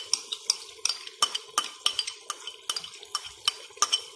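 A metal spoon clinking against a clay cooking pot and a plastic bag as yogurt is scraped out of the bag into the pot. The sharp clinks come in a steady run of about two or three a second.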